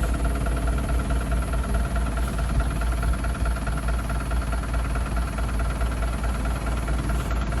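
Tour bus diesel engine running at idle: a steady low rumble with a steady hum above it.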